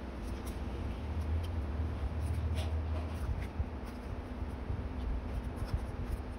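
Instax photo prints and paper sliding and rustling against a notebook page as they are handled and pressed into place, with small scattered clicks. A low rumble sits underneath for a couple of seconds starting about a second in.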